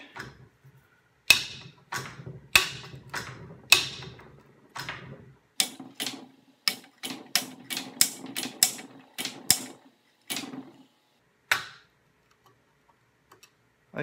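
About twenty sharp metal-on-metal taps, each with a brief ring, as a flat steel piece is knocked against the pinned and welded birdcage flash hider of a Daniel Defense M4A1 barrel to work the pin loose. The taps come at an uneven pace and quicken to two or three a second in the middle.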